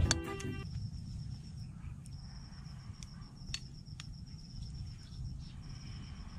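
Insects trilling in a steady, rapidly pulsing high tone with a few short breaks, over a low rumble. Background music cuts off about half a second in.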